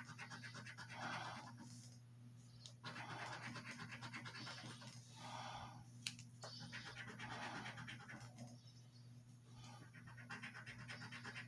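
Coin scratching the coating off a scratch-off lottery ticket: faint, quick rubbing strokes in several short runs with brief pauses between them, and a single sharp tick about six seconds in.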